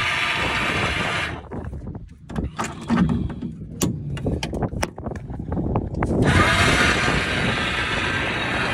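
Electric anchor windlass running with its chain, stopping about a second in; a few seconds of scattered clicks and knocks follow before it starts again about six seconds in.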